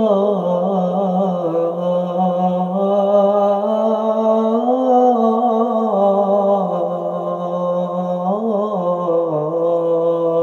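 A man's voice singing the Islamic call to prayer (adhan) in a Middle Eastern-style melody. It is one long, ornamented melismatic line, with the notes bending and turning around a held pitch.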